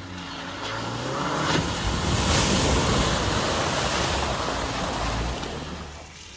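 A vehicle driving past on a dirt trail: a faint engine hum under a rushing noise of tyres and wind that swells to a peak two to three seconds in and fades near the end.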